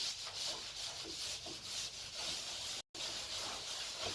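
Continuous rubbing and scraping as the door knob assembly is worked and wiggled loose by hand, uneven in strength, with a brief total dropout a little under three seconds in.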